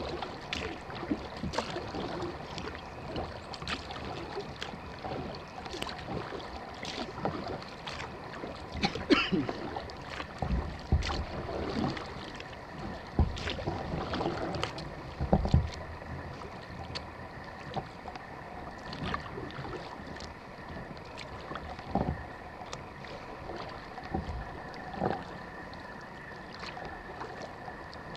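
Kayak paddle strokes dipping into calm water, with drips and small splashes, and a few low thumps around the middle.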